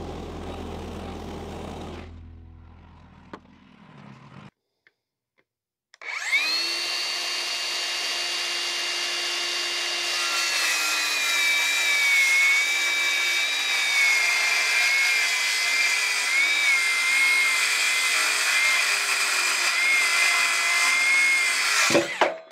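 Handheld circular saw spins up about six seconds in and rips along the edge of a thick white oak plank for about sixteen seconds. Its high whine sags a little and wavers as the blade loads up in the wood, then it cuts off at the end of the cut.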